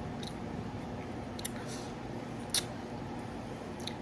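A few short, faint clicks over a steady low hum, the loudest about two and a half seconds in.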